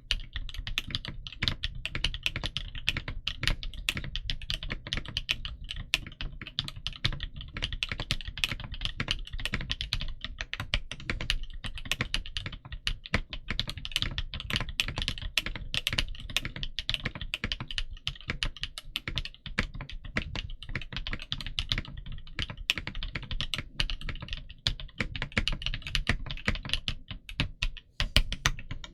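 Fast continuous typing on a Tiger Lite Gaming V2 mechanical keyboard with Gateron Smoothie linear switches and Domikey keycaps, many keystrokes a second, with a brief pause near the end.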